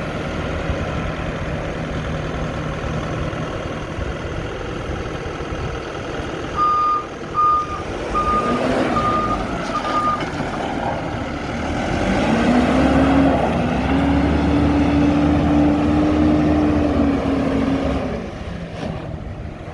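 Lonking 83C backhoe loader's Perkins 3.6-litre diesel engine running, with five short beeps of a reversing alarm about seven seconds in. About twelve seconds in, the engine revs up and holds a higher, louder pitch, then drops back to idle near the end.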